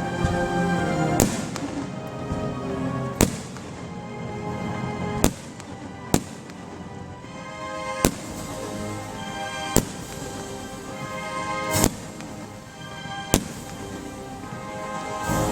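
Fireworks going off over music, with about eight sharp bangs spaced roughly every two seconds.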